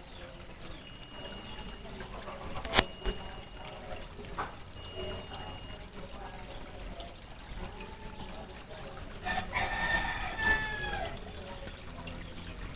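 Koi pond waterfall splashing steadily into the pond. A single sharp click comes about three seconds in, and near the end a drawn-out call of about a second and a half rises over the water.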